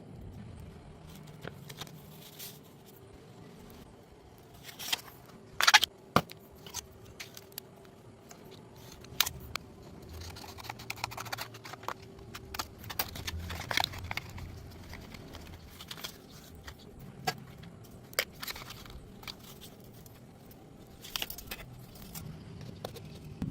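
Scattered light metallic clinks, taps and scrapes as metal pipe and tools are handled, with a few sharper knocks about five to six seconds in.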